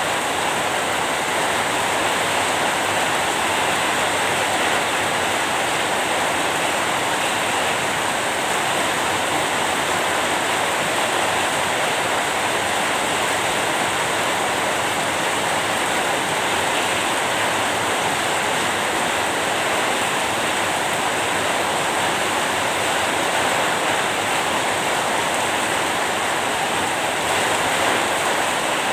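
Steady, even rain noise with no distinct drops or thunder.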